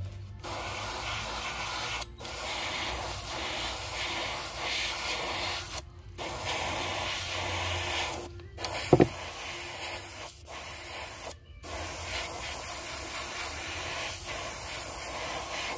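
Airbrush spraying opaque white base-coat paint: a steady hiss that stops briefly about four times and then resumes. A short thump about nine seconds in.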